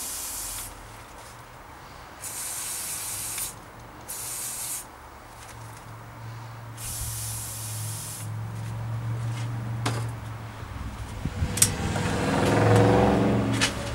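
Aerosol penetrating spray hissing in four short bursts onto a seized seat post. In the second half a low hum builds and grows louder near the end.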